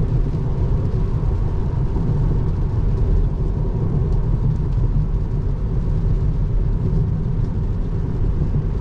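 Steady low road and tyre rumble heard inside the cabin of a Tesla Model 3 cruising at highway speed on a rain-wet road, with no engine note.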